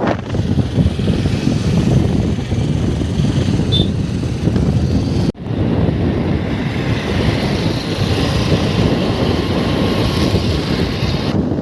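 Wind buffeting the microphone over road and engine noise while riding a motorcycle. A steady low rumble, broken by a brief dropout about five seconds in.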